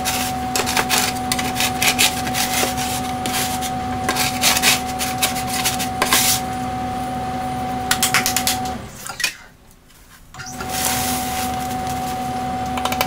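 Wooden board being handled on a table: scattered knocks, clicks and scraping over a steady electrical hum. The sound drops away briefly about nine seconds in, then the hum and clicks return.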